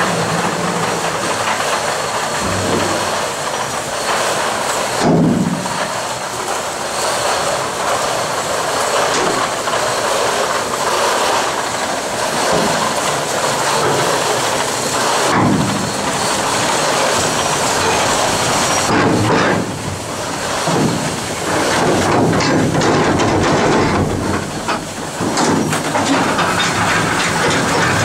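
Boat-chute water ride: steady rushing water in the wooden flume as the boat travels along it, with an ongoing clickety-clack rattle and a few louder knocks.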